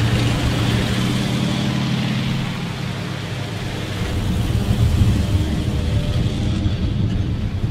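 Engines of WWII-era military vehicles running as they drive in convoy, a steady engine drone whose sound changes about four seconds in.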